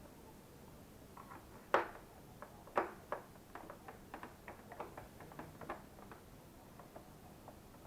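Irregular clicks and light knocks of plastic vacuum-cleaner parts being handled and worked apart during disassembly, with two louder knocks about two and three seconds in, then a quick run of lighter clicks.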